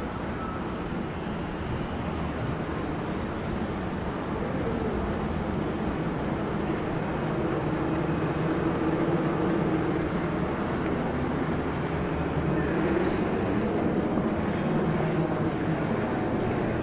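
Steady outdoor city noise, with a low engine hum that grows a little louder from about six seconds in.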